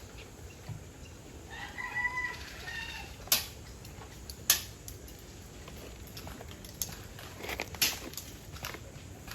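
A rooster crowing about two seconds in, then a couple of sharp clicks and a few fainter ones later.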